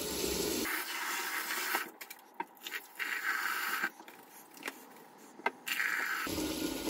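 Kitchen tap water running into a bucket of dry pigeon conditioner seed mix to soak it, a hissing noise that stops and starts a few times, with scattered clicks and scrapes.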